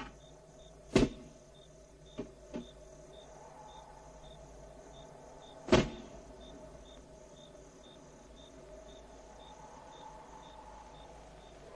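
A few sharp, separate knocks: a loud one about a second in, two lighter ones soon after, and another loud one a little before the middle. Under them run a faint steady hum and a faint high ticking about twice a second.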